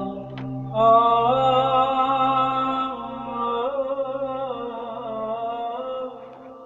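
Romanian Orthodox church chant: a sung melody line moving slowly over a low held drone note. It swells up loudly about a second in and fades down near the end.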